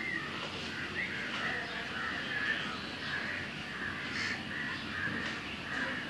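Alexandrine parakeet calling close up: a string of short calls, about two a second.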